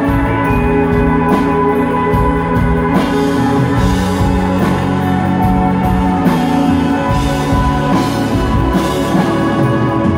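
Live shoegaze rock band playing: dense, sustained guitar chords over a drum kit keeping a steady beat.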